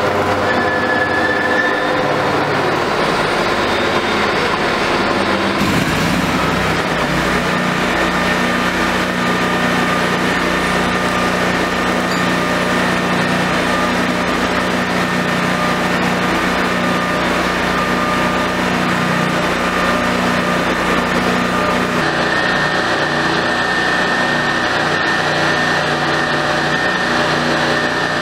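Small hydraulic drilling rig running on test: its gasoline engine drives the hydraulic power unit at a steady pace while the control levers are worked. The hum shifts about six seconds in and changes again past twenty seconds, as the load on the hydraulics changes.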